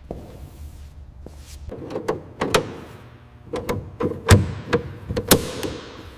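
A run of about eight sharp knocks, each ringing briefly, like metal parts being struck or set down in a workshop, the loudest just past four seconds in.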